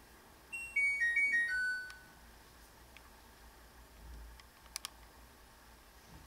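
A short electronic chime: about six quick beep notes stepping down in pitch, the last one held briefly, over about a second and a half. A quick double click follows about three seconds later.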